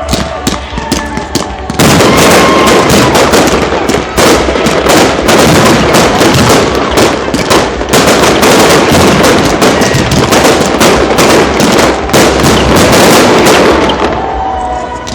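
Fireworks display: a dense barrage of rapid bangs and crackling that starts about two seconds in and eases off near the end.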